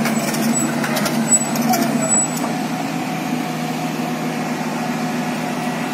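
Large crawler excavator's diesel engine running steadily as the machine travels on its tracks, with a few short clanks in the first two seconds.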